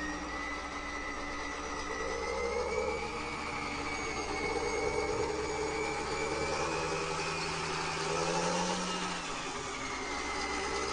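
Radio-controlled toy dump truck driving slowly, its motor and drive gears whining and shifting up and down in pitch as it moves.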